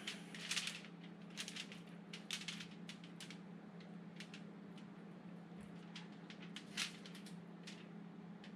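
Faint, irregular crinkling and rustling of aluminium foil handled under a trout while pesto is spread on it with a spoon, over a steady low hum.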